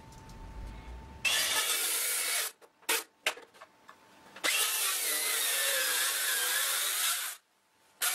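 Cordless circular saw cutting across a hardwood board: a short cut of about a second, a couple of clicks, then a longer cut of about three seconds that stops abruptly, with another cut starting near the end.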